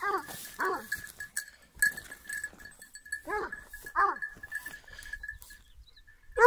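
Ariégeois hound giving tongue on a scent track: four short yelps, each falling in pitch, in two pairs about three seconds apart, with a longer held bay starting right at the end.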